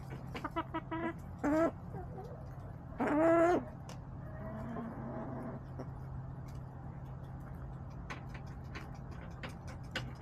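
Backyard hens calling: a run of short clucks in the first second, a louder drawn-out squawk about three seconds in, then a softer call. Light scattered clicks and a steady low hum sit underneath.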